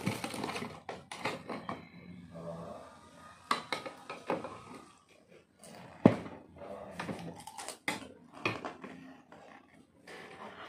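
Metal fork and spoon clinking and scraping against a plate, a string of separate sharp clicks with the loudest about six seconds in.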